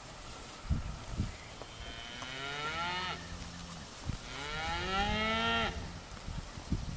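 Young beef calf mooing twice: two long calls of about a second and a half each, both rising and then falling in pitch. A few soft low thumps come before the first call.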